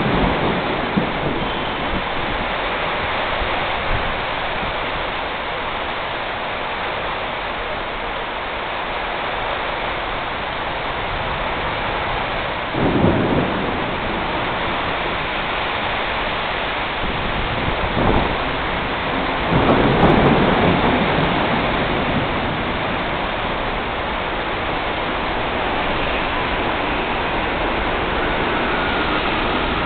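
Steady hiss of heavy rain during a thunderstorm, broken by a few short low rumbles, the longest and loudest about two-thirds of the way through.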